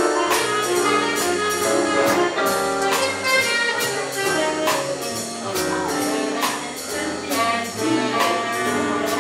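Live big-band jazz orchestra playing dance music: brass and saxophones carry the tune over a steady drum beat.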